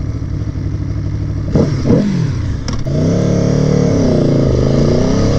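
Aprilia Tuono motorcycle engine pulling away from a standstill and accelerating. After a quick dip and rise in pitch, the note climbs steadily, drops once about two-thirds of the way in, and climbs again.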